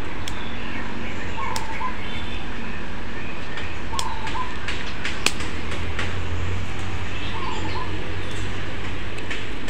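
Small scissors snipping bonsai ficus leaves, giving scattered sharp clicks, while a bird repeats a short call every two to three seconds over a steady low hum.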